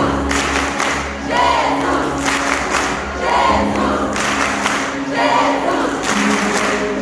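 Christian worship song with a group of voices singing over held bass notes, the sung phrases coming about every two seconds.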